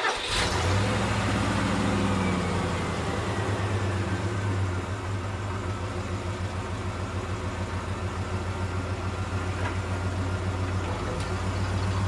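Pickup truck engine idling with a steady, evenly pulsing low drone. A faint falling whine fades out over the first few seconds.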